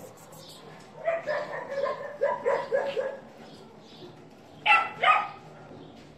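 Dog barking: a quick string of short, high yaps for about two seconds, then two louder barks about half a second apart near the end.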